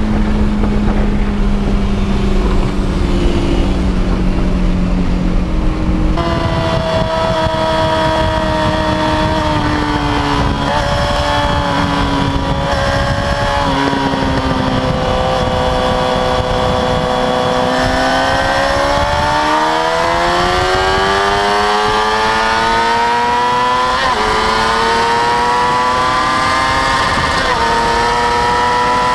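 Car engine under hard acceleration. Its pitch drops back, then climbs steadily for about ten seconds, with an abrupt change in the sound about six seconds in.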